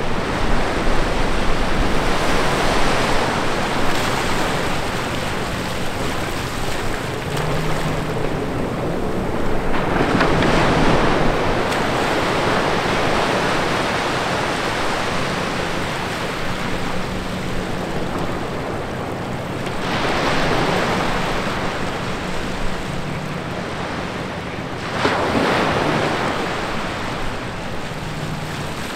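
Small ocean waves breaking and washing in between two rocks over wet sand, swelling and ebbing with each surge, about four stronger surges in turn.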